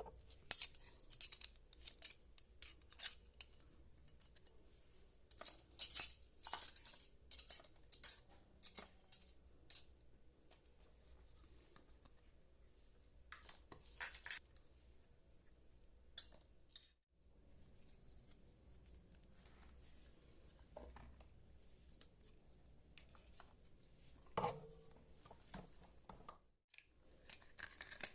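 Miniature toy kitchen pieces being handled and set down: quick clicks, taps and rustles, thickest over the first ten seconds and then scattered. About 24 seconds in, one piece gives a short ringing clink.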